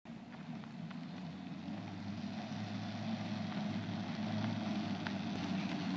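Wagon wheels rolling on asphalt: a steady low rumble that grows gradually louder as the wagon comes closer.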